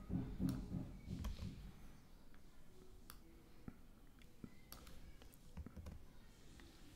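Faint, scattered clicks of a computer keyboard and mouse while code is selected, cut and pasted in an editor.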